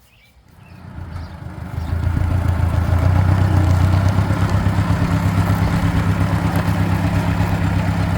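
Ford 650 tractor's engine idling, running again after repairs. It grows louder over the first two seconds, then holds a steady, even, low beat.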